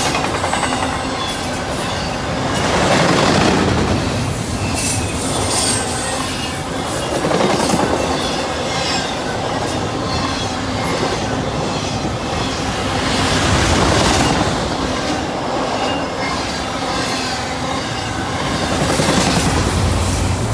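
Double-stack container well cars of a freight train rolling past at speed. The wheels make a steady rumble and clatter on the rails that swells as each car goes by, with occasional high wheel squeal.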